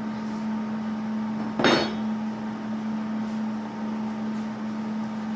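A single sharp metallic clank with a brief ring, about a second and a half in: metal striking metal. A steady hum runs underneath.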